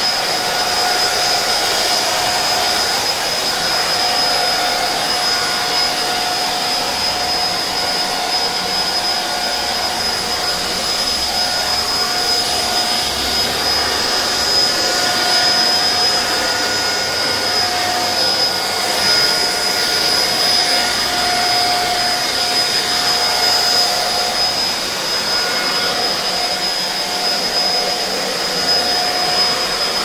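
Tirewell TW-7006 corded 1100 W stick vacuum cleaner running steadily: an even rushing of air with a constant high motor whine.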